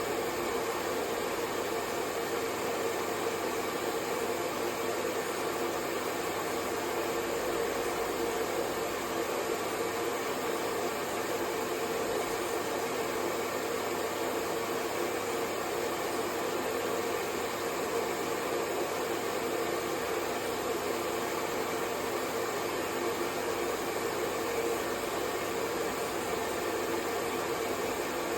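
Hair dryer running steadily, a constant even whoosh of blown air with a hum near its middle.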